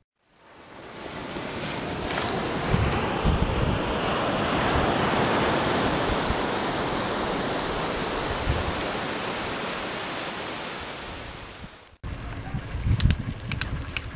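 Steady rush of surf and wind blowing across the microphone on an open sand beach, with low buffeting gusts, fading in over the first two seconds and fading away near the end. After a sudden cut come a few sharp clicks and rattles.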